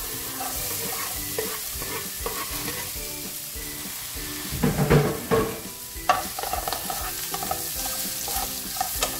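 Sliced red onions sizzling in hot olive oil in a nonstick frying pan, a steady hiss that starts as the onions go in. The onions are stirred, with louder scrapes and knocks of the utensil on the pan about five and six seconds in.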